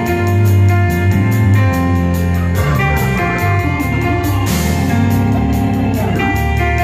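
Live band of drum kit, bass, organ and guitar playing together, with steady hi-hat ticks over held organ chords and a bass line. A cymbal crash rings out about two-thirds of the way through.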